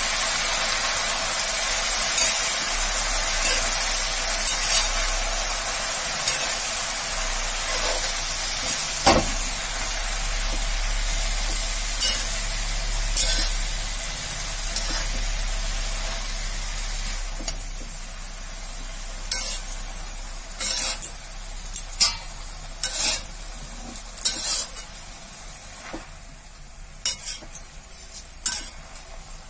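Jute leaves frying in oil in a steel pan, sizzling while a spatula stirs and turns them. The sizzle slowly dies down, and in the second half the spatula's short scrapes and taps against the pan stand out.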